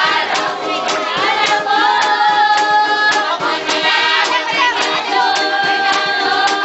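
A group of women singing together, with held notes, over strummed string instruments keeping a steady beat.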